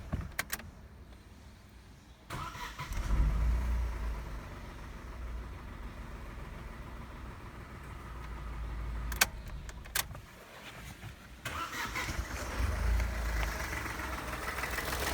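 Petrol car engine started with a surge and then running steadily. After a couple of clicks it stops briefly and is started again, catching with another surge near the end.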